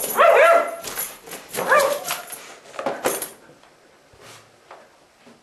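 Dog-like barking yelps, three of them about a second and a half apart, each rising then falling in pitch; the first is the loudest and the last the weakest.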